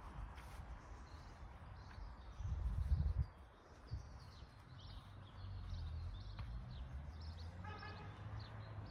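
Small birds chirping here and there, with a short pitched call near the end, over a low rumble of wind on the microphone that swells for a moment about three seconds in.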